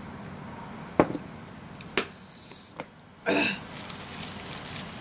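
Crunchy unripe mango being bitten and chewed: two sharp crunches about a second apart, a smaller one after them, then a brief vocal sound a little past three seconds in.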